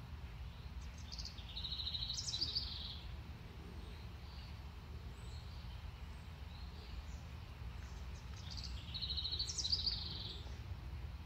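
A songbird singing twice, about seven seconds apart, each song a quick run of high notes ending in a rapid trill, over a steady low background rumble.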